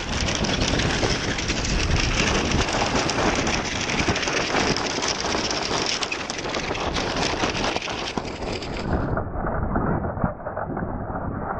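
Wind buffeting the microphone over water rushing and splashing past the hull of a racing yacht under sail through choppy sea. The noise is dense and steady, and turns duller about nine seconds in.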